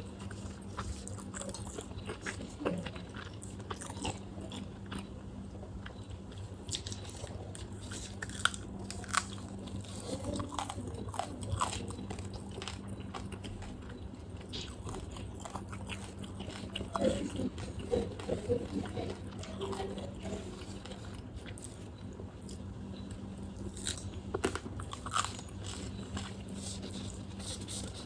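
Close-miked eating of fried quail with rice: wet chewing with scattered bites, crunches and mouth clicks, busiest in a few spells, over a steady low hum.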